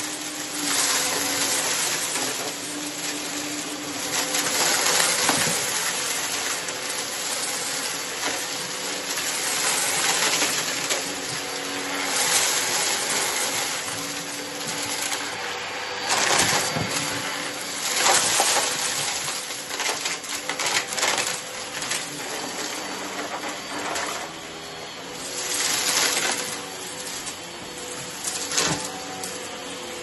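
Hoover WindTunnel XL Pet upright vacuum cleaner running steadily on carpet while sucking up scattered confetti-like debris, with irregular crackling and rattling as the pieces are pulled up into the machine.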